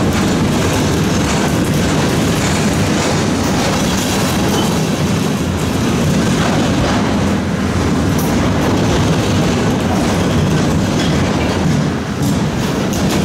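Freight train cars rolling past at close range: a steady rumble of steel wheels on the rails from a string of loaded bulkhead flatcars.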